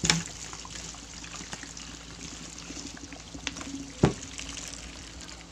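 Water swirling and trickling from the upper bottle into the lower one through the taped necks of a two-bottle 'tornado in a bottle', with faint scattered clicks. A sharp knock about four seconds in.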